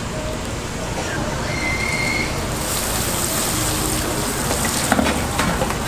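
Food deep-frying in hot oil, a steady sizzling hiss that grows louder about three seconds in, with a few sharp clicks near the end.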